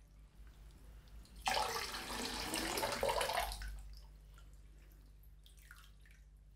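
Water poured from a jug over a person sitting in a filled bathtub: a rush of splashing water that starts suddenly about a second and a half in and lasts about two seconds, then faint drips and small splashes into the bath.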